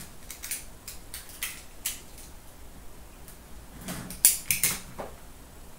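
Cardboard hockey card box being handled and opened by hand: scattered light scrapes and clicks, with a short burst of louder scrapes about four seconds in.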